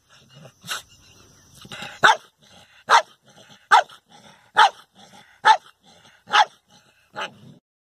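A dog barking at its own reflection in a mirror: eight sharp barks about a second apart, the last one fainter.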